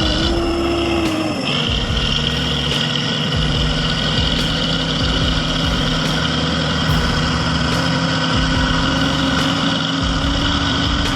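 Heavy machine's engine running steadily; its pitch drops a little about a second and a half in, then holds.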